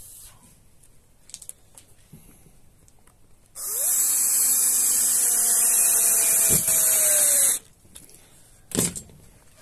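Hilti cordless drill-driver driving a screw into OSB board. It runs for about four seconds, its whine rising at the start and then sagging slightly as the screw bites, before it stops. A short knock comes near the end.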